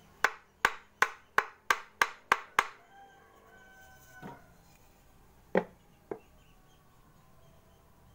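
A hand tool tapping on a wooden board: eight quick sharp knocks, about three a second, each with a brief ring. Then a softer knock, and two more taps about five and a half and six seconds in.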